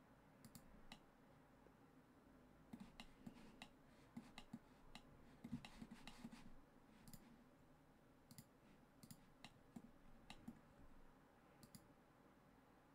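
Faint, irregular clicking of a computer mouse's buttons and keyboard keys, some clicks single and some in quick little clusters.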